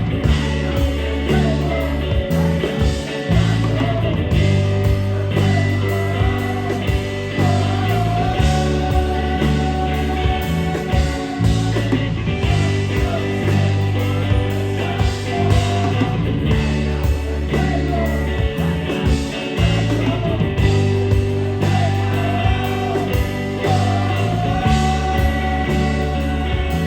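Rock music: electric guitars over a heavy bass line, with a singing voice.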